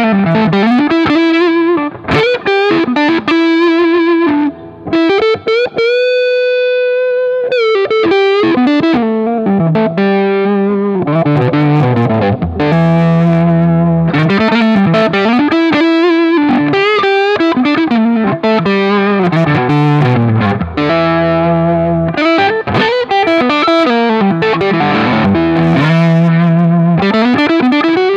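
1964 Gibson ES-120T hollow-body electric guitar with a low-output single-coil pickup, driven through a Boostache overdrive/boost pedal into a Fender Deluxe Reverb amp. Lead lines with string bends and a long held vibrato note about six seconds in.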